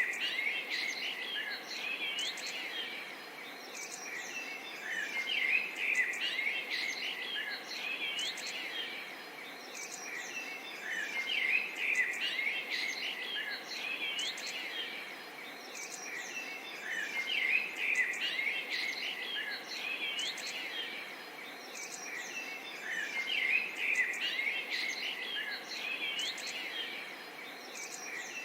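Forest ambience: many birds chirping and calling over a steady insect hiss, the chorus swelling and easing about every six seconds.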